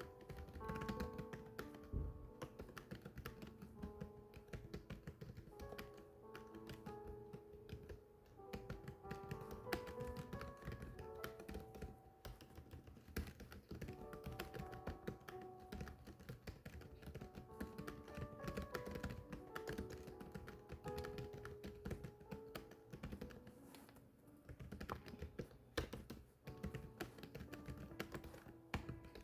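Continuous fast typing on a keyboard, a dense run of key clicks, over background music with a slow melody.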